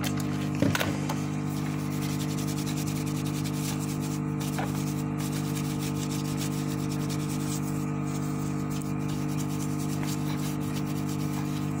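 Steady electrical hum from bench equipment, with a brush scrubbing the freshly soldered HDMI port area on a PS5 circuit board to clean it. A single sharp knock about half a second in.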